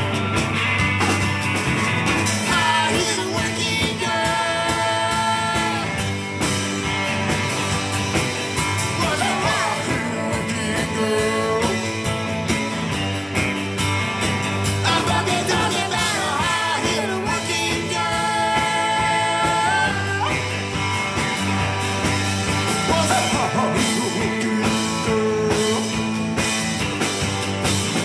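A live band plays an upbeat rock-and-roll number, with electric and acoustic guitars over drums and bass. A lead line of long held notes, some of them bending, runs over the steady rhythm.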